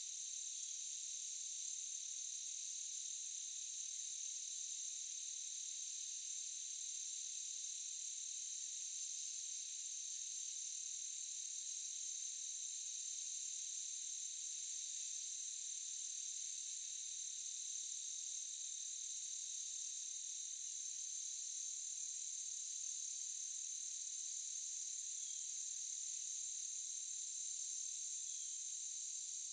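Crickets chirping in a steady, high-pitched chorus, with a still higher trill that switches on and off about every second and a half.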